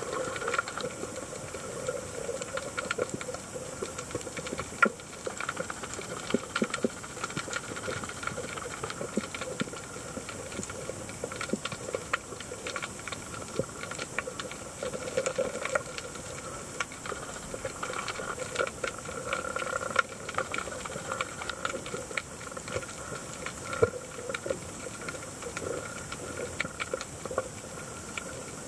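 Underwater ambience picked up by a submerged camera: a steady hiss with a dense, irregular crackle of small clicks.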